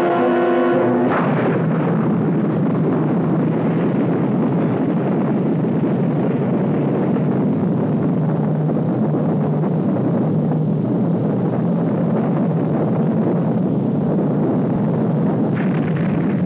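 Music stops about a second in and a continuous roaring rumble takes over: an explosion sound effect on an old film soundtrack.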